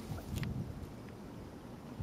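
Wind rumbling on the microphone outdoors on open water, with a couple of light clicks about half a second in.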